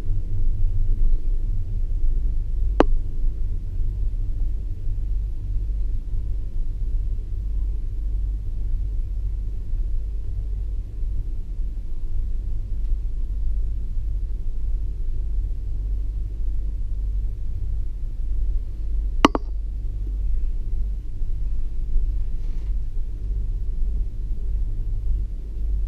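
Steady low rumble inside a Leitner eight-seat gondola cabin riding up the haul rope, with two sharp clicks, one about three seconds in and another some sixteen seconds later.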